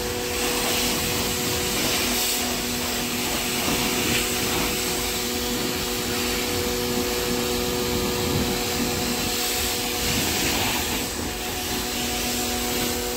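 DYLECT Ultra Flow Plus 1900-watt electric pressure washer running steadily while spraying, a constant motor hum under the hiss of the water jet.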